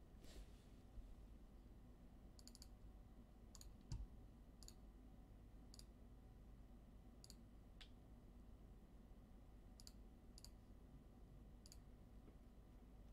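Faint, scattered clicks of trading cards being handled and flipped through, with one soft thump about four seconds in, over near silence.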